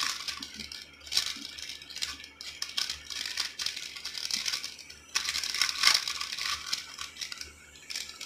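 Squishy toys and their plastic packaging being handled and put away into a container: irregular rustling and rattling, with a louder clatter about six seconds in.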